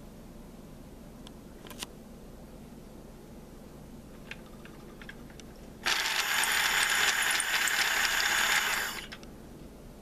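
Small electric motor of a 1973 Mattel Electric Hog toy motorcycle running in the hand, its drive gear spinning the rear tire. It starts suddenly about six seconds in and runs for about three seconds before stopping. Before it, a few light clicks as the toy is handled.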